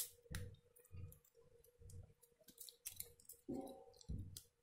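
Faint, irregular clicks and rubbing of plastic as the body shell of a small toy sensor helicopter is handled and pried open by hand. A faint steady hum runs underneath.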